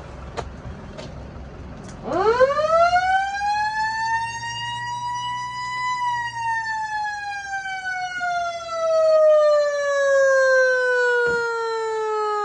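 Isuzu Elf fire truck siren giving one slow wail. About two seconds in it winds quickly up to a high pitch, then falls slowly and steadily for the rest of the time. Before it starts, the truck's engine is heard idling, with a few small clicks.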